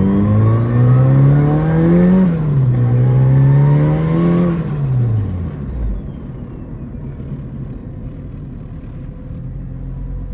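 Turbocharged Honda Civic engine accelerating hard, its pitch climbing, dropping sharply in a quick upshift about two seconds in, then climbing again before falling off about four and a half seconds in, with a high whine rising and falling alongside. After that it settles to a steadier, quieter running noise.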